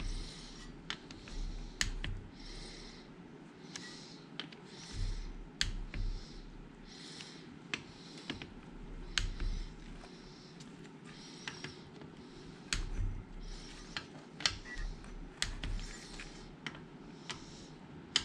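Click-type torque wrench ratcheting in short strokes, with many sharp clicks, as the water pump cover bolts are rechecked at 15 foot-pounds. Occasional low thumps from handling.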